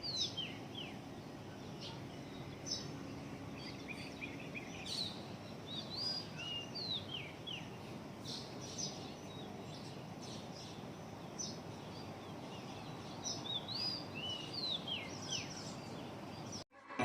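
Wild birds chirping and calling in short, repeated whistled notes that sweep up and down, over a steady hiss of outdoor background. The sound cuts off suddenly near the end.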